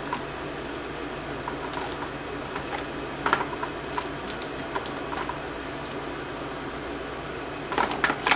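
Scattered light clicks and crinkles of scissors snipping and hands handling tape and plastic packaging, with a few louder snips about three seconds in and near the end.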